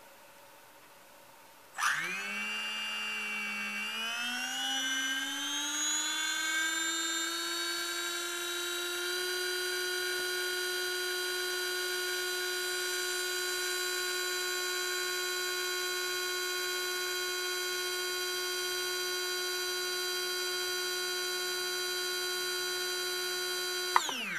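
Castle Mamba Monster 2650 kV brushless motor running unloaded on a motor analyzer. Its whine starts about two seconds in and climbs in pitch in a few steps to full speed, about 21,500 rpm, then holds a steady high whine. Near the end there is a click, and the whine falls away quickly as the motor is stopped.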